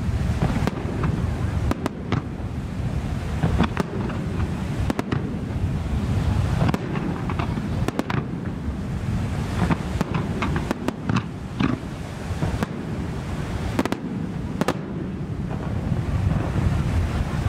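Fireworks display: aerial shells bursting in many sharp bangs at irregular intervals, some coming in quick clusters, over a constant low rumble.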